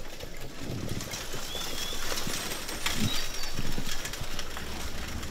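Ambient recording of a horse-drawn carriage ride through woods: the carriage rumbling along with irregular hoof clops and knocks, and a short bird chirp about two seconds in.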